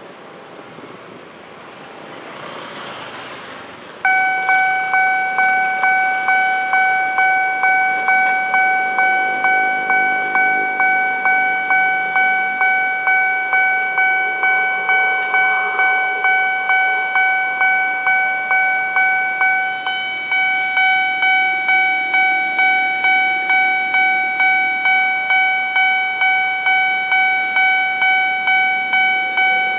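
Level-crossing warning bell, a loud electronic ding-ding that starts suddenly about four seconds in and repeats steadily about twice a second, signalling an approaching train. Faint road traffic before it.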